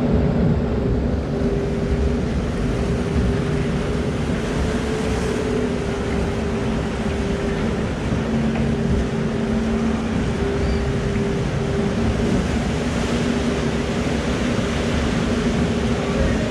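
Log-flume water rushing and churning in the channel around the boat, a steady noise with a low hum running through it.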